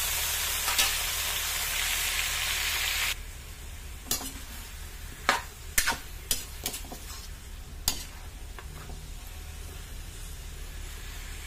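Pork ribs sizzling in rendered pork fat in a metal wok. The sizzle cuts off abruptly about three seconds in, and a metal ladle then knocks and scrapes against the wok several times as the meat is stirred.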